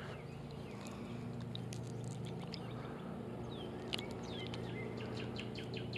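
Faint outdoor ambience: small birds chirping with short downward-sliding calls, several times, over a steady low hum. A single soft click about four seconds in.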